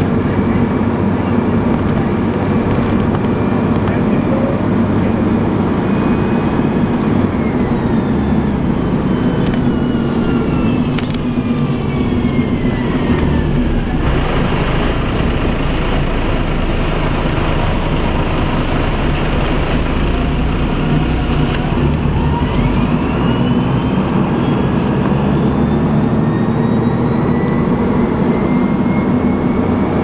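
Alexander ALX300 bus with a Voith automatic gearbox heard from inside the saloon: a steady engine drone under the gearbox's high, hoover-like whine. The whine falls in pitch as the bus slows, then rises again as it pulls away near the end.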